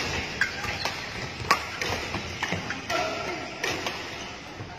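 Badminton rackets striking shuttlecocks during practice rallies: several sharp smacks at uneven intervals, echoing in a large sports hall.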